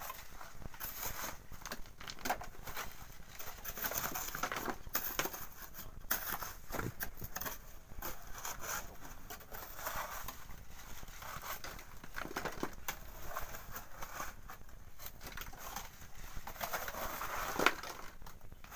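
Shovels scraping and scooping gritty volcanic sand and stones. Sand and gravel rattle through a hand-held wire sieve into a wheelbarrow, with scattered clicks of stones. One sharp clack near the end is the loudest sound.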